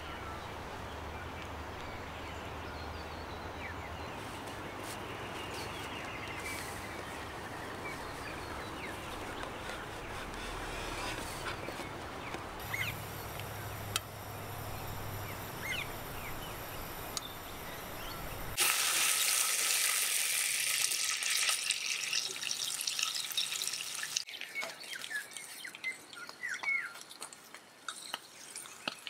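Water sounds with birds chirping now and then. About two-thirds of the way in, the sound switches suddenly to a brighter, louder hiss, then drops back to quieter water with chirps.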